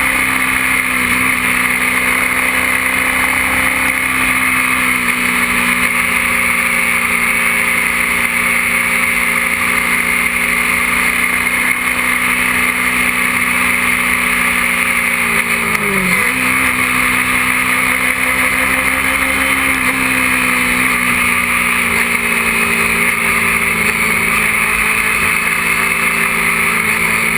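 Sport bike engine running steadily at speed under heavy wind rush, recorded by an action camera on the bike. The engine note dips sharply once about sixteen seconds in, then picks straight back up.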